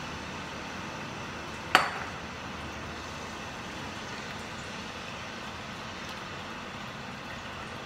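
Beef and water being stirred in a non-stick wok with a silicone spatula over a steady hiss, with one sharp clink about two seconds in.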